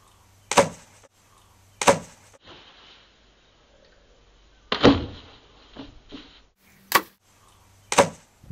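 Five short, sharp bangs or knocks, spaced one to three seconds apart, over a quiet background.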